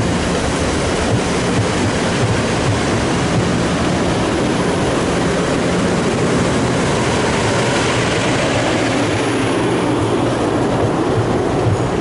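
Amtrak passenger coaches rolling past close by: a steady, loud rumble of steel wheels on the rails.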